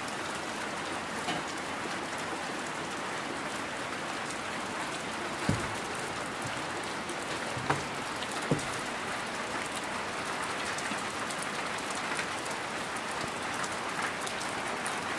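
Steady rain falling, with three short, louder taps about five and a half, seven and a half and eight and a half seconds in.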